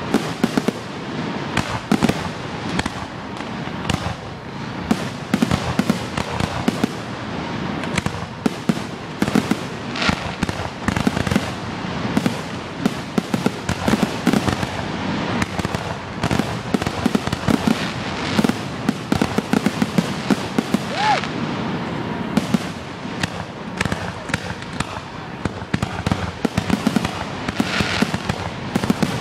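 Dense barrage of aerial firework shells bursting, several sharp bangs a second overlapping one another with no let-up.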